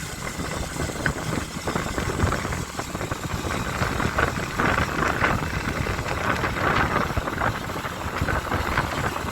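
Motorcycle engine running under way, with steady rumble and wind and road noise that swell somewhat in the middle.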